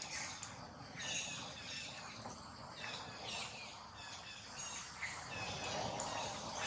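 Outdoor ambience: birds chirping in short, high, falling notes about once a second, over a steady background hiss.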